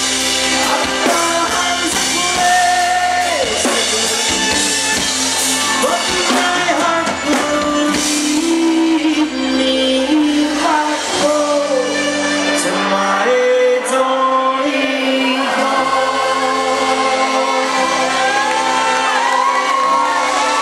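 Live folk-rock band playing: accordion, acoustic guitar, bass and drums with singing, the accordion holding long notes over the beat. Shouts and whoops from the crowd join in toward the end.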